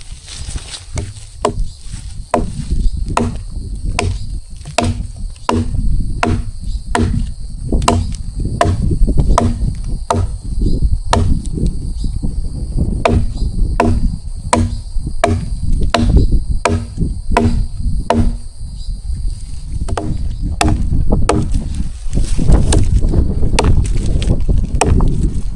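Repeated chopping strikes on wood, about two a second with a short pause near the end, over a low rumble of strong wind on the microphone.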